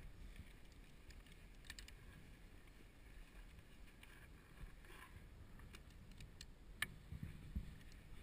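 Faint scattered clicks and light taps, one sharper click near the end, over a low background rumble.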